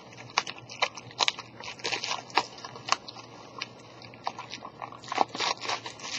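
Plastic packaging crinkling and crackling as it is handled and pulled off the hockey card box, a stream of irregular sharp crackles.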